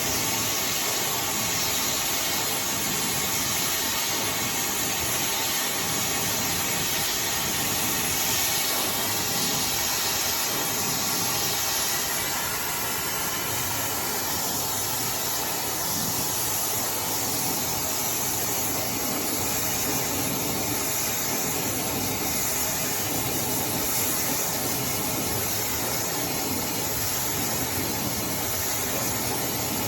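iDryer AI Pro Style hair dryer blowing hot air on hair, a steady rush of air that drops a little in level about twelve seconds in.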